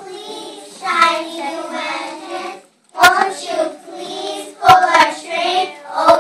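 Young children singing a song together, with a few sharp knocks cutting in during the second half.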